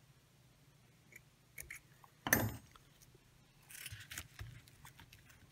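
Fly-tying tools handled at the vise: scattered light clicks, a sharper click about two seconds in, and a short rustling hiss a little past the middle.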